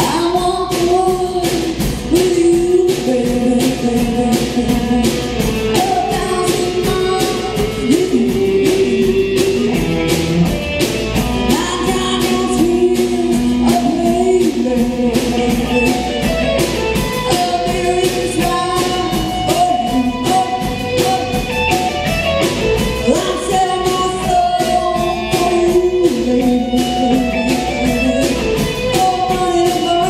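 A band playing a song live, with a sung lead vocal over a steady drum beat.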